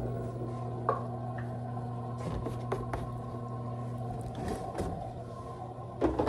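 Washing machine running with a steady hum, about to start its rinse, with a few light clicks and knocks of plastic being handled.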